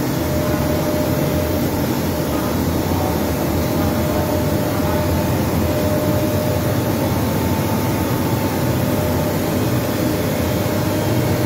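Rice milling unit machinery running: a loud, steady mechanical drone with a faint steady whine, unchanging throughout.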